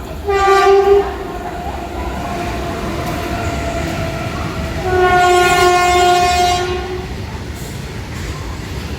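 Train horn sounding twice: a short blast of under a second, then a longer blast of about two seconds, over a steady low rumble.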